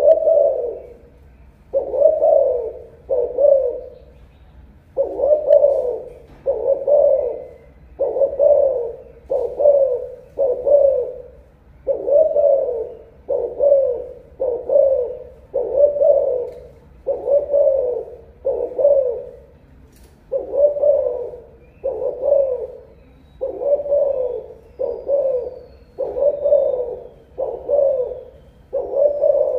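Caged spotted dove of imported Malaysian-bred stock cooing: a steady run of low coos, each with a slight downward slur, repeated about once every second or so with only short pauses.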